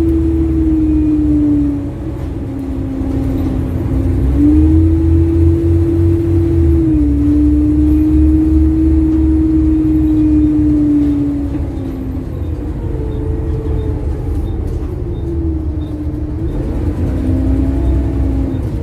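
Bus engine and driveline running under way: a low rumble with a steady whine that steps up and down in pitch several times as the bus speeds up and slows. The exhaust manifold has failed, which gives the engine a ticking noise.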